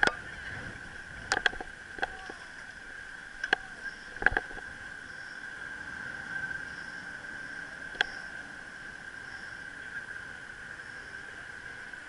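Ride noise from a bicycle carrying the camera, rolling over city asphalt: a steady whine underneath, with several short sharp knocks and rattles in the first eight seconds, the loudest near the start and a little past four seconds in.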